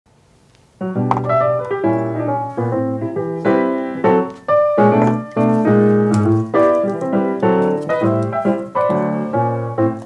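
Background piano music, starting about a second in with a run of chords.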